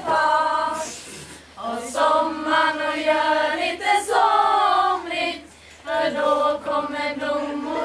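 A group of teenage girls singing a song together without accompaniment, in held sung phrases that break off twice for short pauses.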